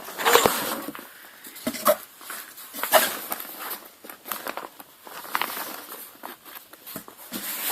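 Irregular rustling and crinkling of packaging as a diaper bag is pulled out of its shipping box.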